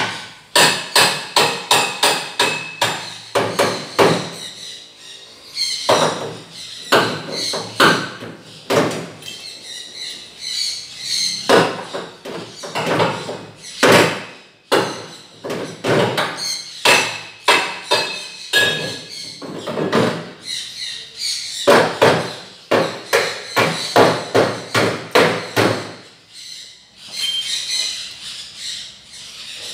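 Hammer blows on metal, a few sharp strikes a second in five bouts of rapid hammering with short pauses between them.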